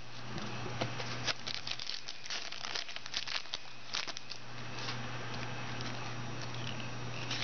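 A foil trading-card pack wrapper crinkling as it is torn open and the cards are pulled out. The crackling is thickest in the first four seconds or so, then thins to quieter handling.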